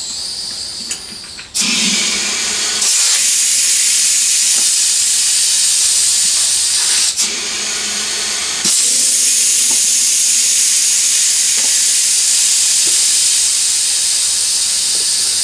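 Air hissing steadily through the valve stem of a motorcycle tyre's inner tube with the valve core out, as the tube is partly inflated and let settle so it is not caught in the bead. It starts about a second and a half in, stops briefly around the middle, then carries on.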